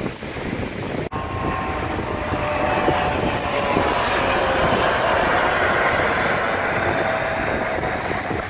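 A Coast Guard helicopter flying past: a steady rotor and turbine rumble, with a faint whine that slowly falls in pitch as it goes by.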